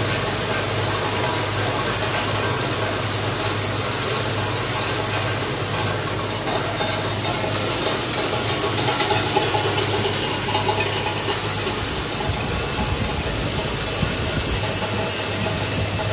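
ZYL-75 screw and bonded-washer assembly machine with its hopper and conveyor feeders running: a steady mechanical hum with hiss.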